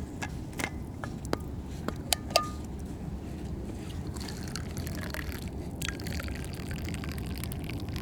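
Scattered light clicks and clinks, two louder ones about two seconds in, one leaving a brief ringing tone, against water trickling and dripping at an ice-fishing hole.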